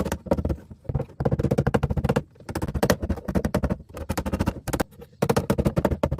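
Bursts of rapid, sharp metal impacts, many strikes a second, as the pop-rivet heads holding a patch plate on a rusted car door panel are flattened down.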